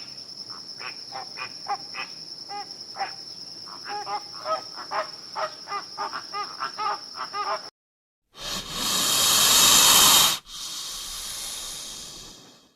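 A steady high insect trill with many short chirps over it. After a sudden cut, a long loud hiss in two stretches: the first swells to its loudest, then breaks off briefly, and a quieter second hiss fades out.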